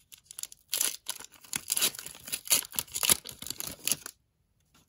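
A hockey card pack wrapper being torn open and crinkled: a dense run of crackling that stops suddenly about four seconds in.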